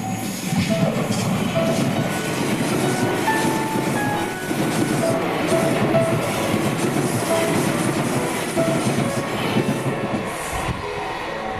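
A JR East Tokaido Line electric train passing close by, its wheels clattering over the rail joints in a steady loud rush that eases near the end.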